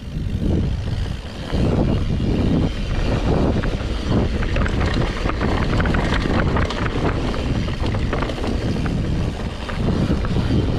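Wind buffeting the action camera's microphone as a mountain bike rolls fast down a gravel dirt trail, with tyres crunching over stones and the bike rattling. It swells within the first two seconds as speed builds.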